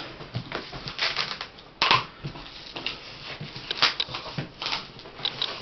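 Cardboard TV box being handled, its cut flaps scraping and crackling in irregular clicks, with one sharp knock about two seconds in.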